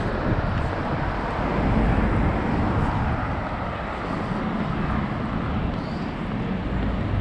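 Street traffic on a town road: a steady rush of car noise with a low rumble, swelling a little about two seconds in.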